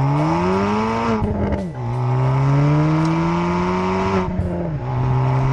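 Stage 2 remapped Ford Fiesta ST (MK7) turbocharged 1.6-litre four-cylinder accelerating hard, heard at the rear exhaust. The note climbs through each gear and drops twice as it changes up, about a second and a half in and again about four seconds in.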